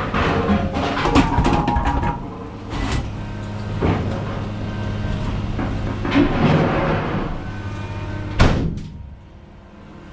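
Repeated clunks and rattles over a steady low hum, with a single loud knock about eight and a half seconds in, after which the hum stops and it goes much quieter.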